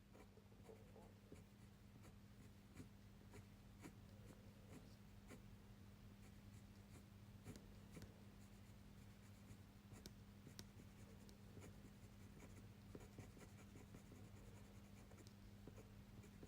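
Faint scratching of a fineliner pen on paper, in short, irregular strokes and taps, over a steady low hum.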